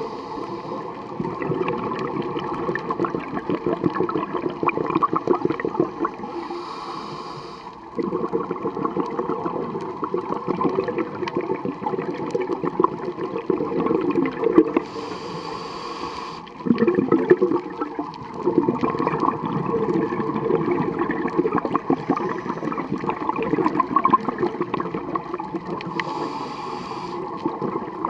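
Scuba diver breathing through a regulator underwater: about three breaths, each a short high hiss of inhaling followed by several seconds of gurgling, rushing exhaled bubbles.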